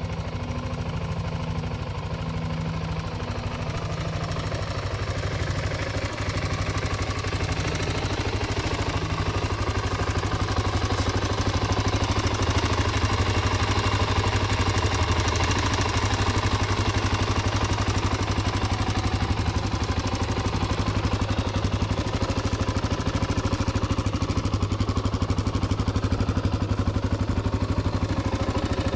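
Honda XR250R's air-cooled single-cylinder four-stroke engine running at a steady idle, a rapid even putter, getting a little louder about six seconds in.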